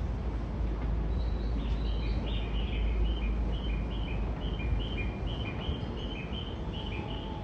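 Steady low rumble of station ambience, with a regular string of short, high, bird-like chirps from about a second in, alternating between two pitches.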